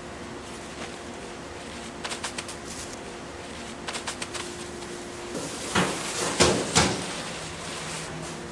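Kitchen handling noises over a steady hum: two short runs of quick light clicks, then louder rustling and scraping with a few sharp knocks, the loudest about six and a half seconds in.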